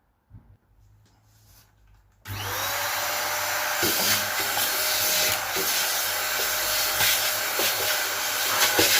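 A power drill with a wire brush head starts up about two seconds in. Its motor whine rises and then holds steady under a loud scratchy rasp as the brush scours paint off bare sheet metal around holes in a van floor, to prepare it for fibreglass filler.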